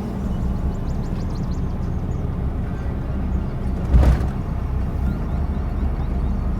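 Car driving along: a steady low engine and road rumble, with a single bump about four seconds in.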